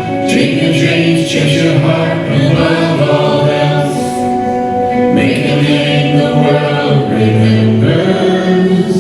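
Worship music: a choir or group of voices singing a gospel song together, with held chords.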